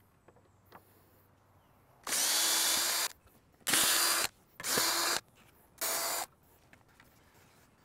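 Cordless drill running in four short bursts, the first about a second long, backing screws out of a wooden 2x4 frame.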